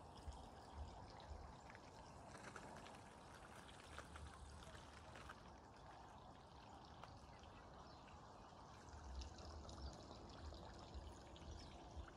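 Faint, steady trickle of water with low wind rumble on the microphone now and then.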